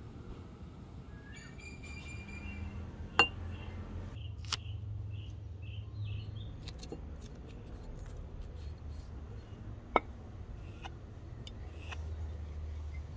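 Outdoor ambience of small birds chirping, including a run of short repeated notes, about three a second, around four to six seconds in, over a low steady rumble. Two sharp clicks, about seven seconds apart, stand out as the loudest sounds.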